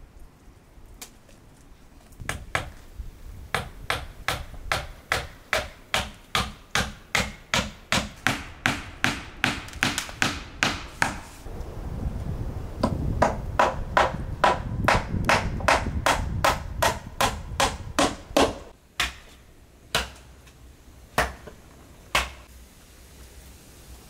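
Hammer driving nails into a wooden plank on a log cabin wall: a long run of steady blows, about two to three a second, then a few slower, separate blows near the end.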